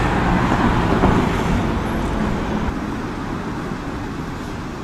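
Steady road traffic noise on a city street, a low rumble that fades slowly.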